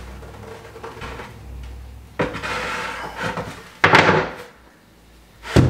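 3/4-inch plywood shelf board being slid into a closet, scraping against the walls and wooden ledgers, then knocking down onto the ledgers with a sharp wooden knock about two thirds through and another near the end.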